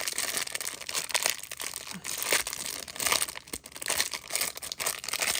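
Packaging of an advent-calendar compartment crinkling and tearing in irregular bursts of small crackles and snaps as a Funko Pocket Pop figure is unwrapped.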